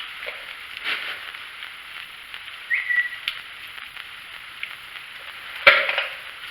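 Small clicks and handling noises of nuts being fitted by hand onto the long bolts that hold the air box and carburetor of a small engine together, with a short squeak about three seconds in and a sharp knock near the end.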